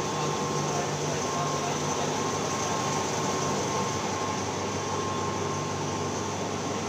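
Ice plant machinery running with a steady hum and a faint high whine.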